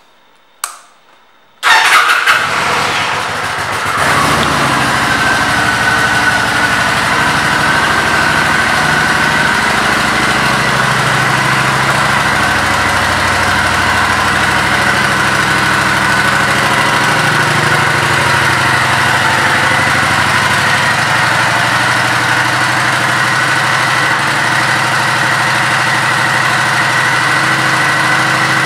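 Kawasaki Vulcan 900 Custom's V-twin engine being started: a short click, then the engine catches about two seconds in, flares briefly and settles into a steady idle.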